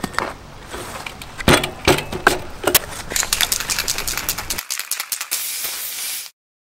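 A BMX bike being handled and ridden off on a dirt path: knocks, sharp impacts and rattling, then fast fine clicking over a hiss. It cuts off suddenly near the end.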